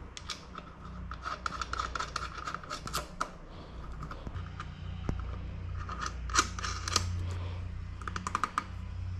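Small metal clicks and ticks in quick runs as the nuts and washers on an e-bike's front wheel axle are turned on finger-tight by hand.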